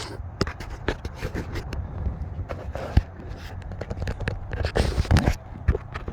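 Footsteps with scraping and clicking handling noise, irregular and uneven, over a steady low rumble.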